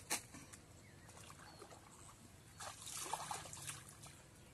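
Pond water sloshing and splashing around a person wading waist-deep, loudest for about a second from roughly two and a half seconds in. A sharp click just after the start.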